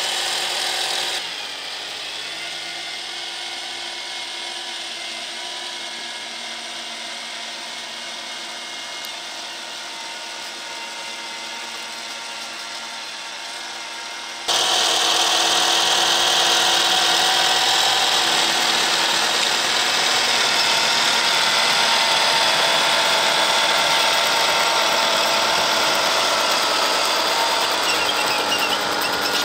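Radio-controlled 3D-printed tracked snowblower working through snow: a steady whine of its small electric motors and plastic gearing, with several held tones, as the auger chews and throws snow. The sound drops abruptly about a second in and comes back louder about halfway.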